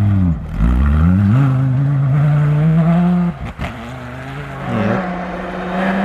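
Rally-raid competition vehicle's engine revving hard as it accelerates along the stage, pitch climbing and then holding. It breaks off sharply about halfway through and climbs again near the end.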